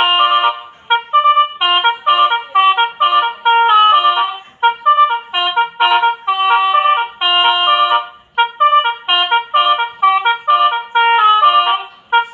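Telolet basuri horn, a multi-trumpet musical horn of the kind fitted to Indonesian buses and trucks, playing a quick melody of changing notes in short phrases with brief breaks between them.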